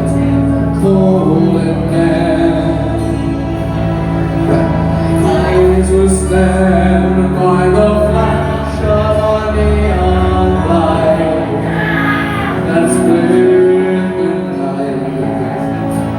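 Karaoke backing track with a voice singing a slow melody over it.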